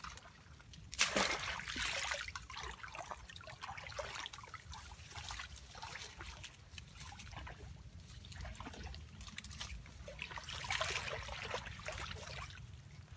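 Shallow muddy water splashing and trickling as a woven bamboo trap is pushed down into it by hand, with the loudest splash about a second in and another run of splashing around ten seconds in.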